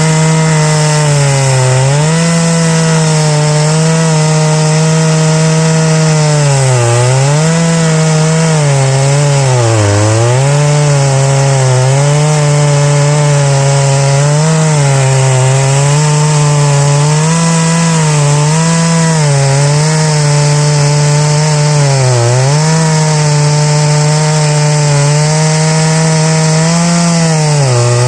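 Large two-stroke chainsaw running at high speed while milling oak, its engine pitch sagging briefly several times under the load of the cut.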